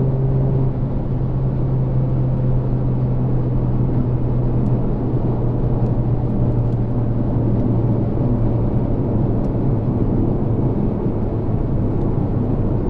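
Volkswagen Golf Mk8 1.4 TSI cruising at highway speed, heard from inside the cabin: a steady engine drone over road and wind rumble, its pitch easing slightly downward as the car slows.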